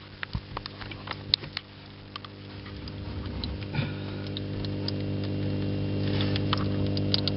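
Vivarium waterfall pump running with a steady mains hum, growing louder from about two seconds in as the microphone nears it. Light clicks and knocks from handling the camera come in the first couple of seconds.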